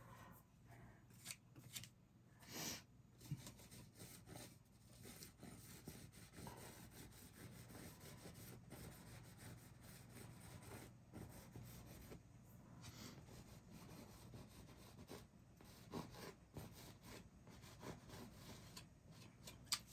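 Faint scraping and dabbing of a palette knife spreading thick paint on a canvas, with a few light taps of the knife.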